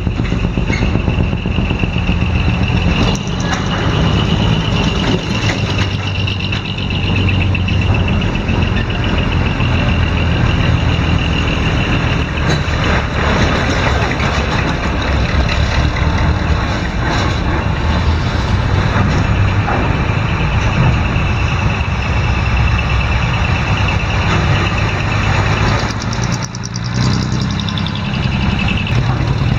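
Heavy diesel trucks' engines running as the trucks drive off a ferry, with a steady high-pitched tone over the engine noise and a brief lull near the end.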